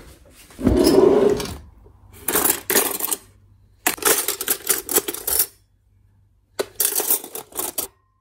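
Stainless steel cutlery clinking and rattling in a plastic drawer tray as a hand rummages through forks and spoons, in three bursts of quick metallic clicks. A louder sliding sound comes about a second in.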